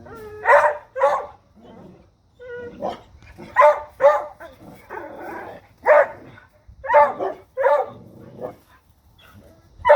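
Dogs barking at a deer: about nine sharp barks, several coming in quick pairs, with pauses of a second or so between them.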